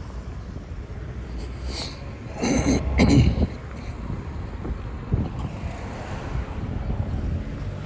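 Street ambience: a steady low rumble of traffic and wind buffeting the microphone, with a louder brief burst of noise about two and a half seconds in.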